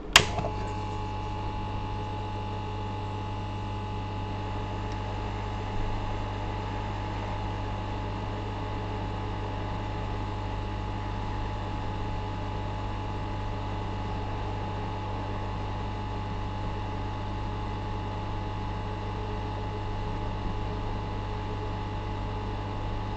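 A ToolCraft hot air rework station switches on with a click and runs steadily: its blower gives an even hum with a faint high whine while a capacitor is desoldered.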